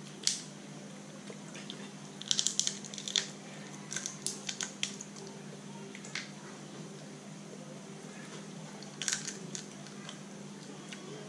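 Cooked Dungeness crab shell being cracked and picked apart by hand: sharp cracks and snaps in scattered clusters, a few seconds in, again around the middle and near the end, over a steady low hum. The shell is soft enough to break with a squeeze of the fingers, without tools.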